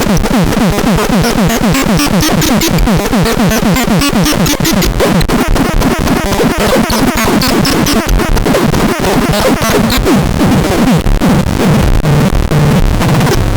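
Chaotic electronic synthesizer sounds: a loud, dense stream of many quick falling pitch sweeps over crackly noise, with no steady beat or melody.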